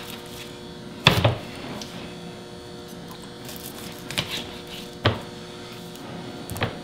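Kitchen knife cutting through rolls of ground beef and knocking on a plastic cutting board, with the portions set down on it: a loud double knock about a second in, then single knocks around four, five and six and a half seconds in. A steady hum runs underneath.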